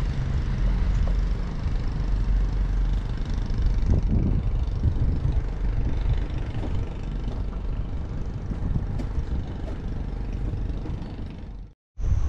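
Boat engine running steadily while under way, a low rumble mixed with rushing noise. It fades and cuts off abruptly just before the end.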